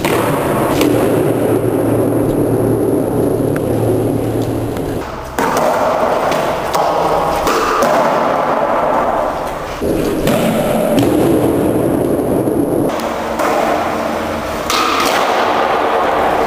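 Skateboard wheels rolling on a smooth concrete floor, echoing in an underground garage, with the sharp clacks of the board popping and landing during flatground tricks.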